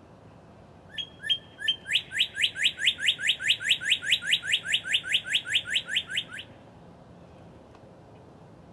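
Northern cardinal singing: a few separate clear whistled notes, then a fast, even run of about twenty slurred whistles, four or five a second, that stops after about four and a half seconds.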